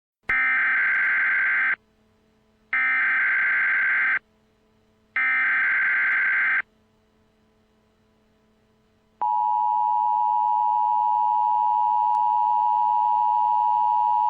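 Emergency Alert System SAME header: three screeching data bursts of about a second and a half each, a second apart. About nine seconds in, the steady EAS attention tone starts and holds.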